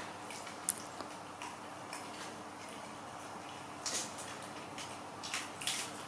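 Young macaques tearing and chewing crisp green vegetable leaves: scattered short crackles and crunches, a few of them louder around the middle and near the end, over a faint steady hum.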